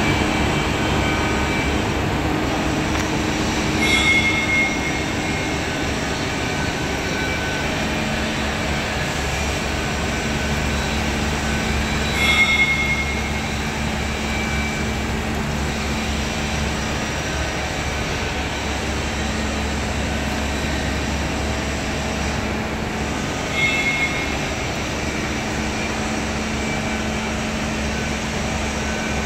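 Machine-shop equipment running: a steady mechanical drone with a low hum, from the CNC machine, its coolant pump and the tramp oil separator. Three brief, high-pitched squeals cut through it, some eight to eleven seconds apart.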